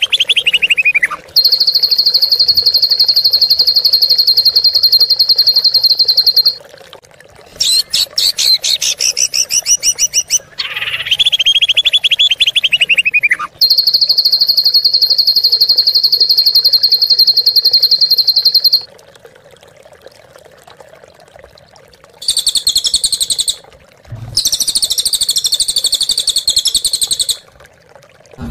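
Songbird song played loud, in the harsh 'tembakan kasar' style: fast descending trills and long, even buzzing rattles of about five seconds each, with rapid staccato notes between them. After a pause of about three seconds, two harsh, scratchy bursts come near the end.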